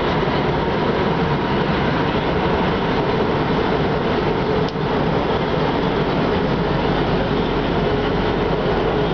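Prague metro train running, heard from inside the carriage: a steady, loud rumble of wheels on rails with a faint steady whine. A brief click a little past halfway.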